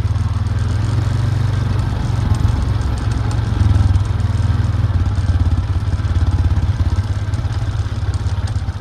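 A vehicle engine running steadily as a low, evenly pulsing drone, heard from on board.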